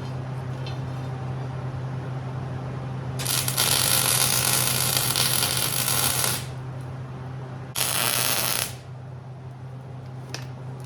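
A steady low hum with two loud bursts of hissing: one about three seconds long starting about three seconds in, then a shorter one of about a second near eight seconds in, both starting and stopping abruptly.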